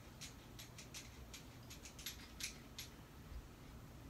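Faint light clicks from typing and tapping on a phone's touchscreen keyboard, irregular at about three a second, stopping about three seconds in.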